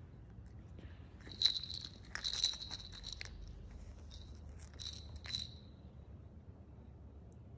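Plastic baby rattle toy being shaken and handled in two short bouts: quick clattering clicks with a small bell-like jingle ringing through them.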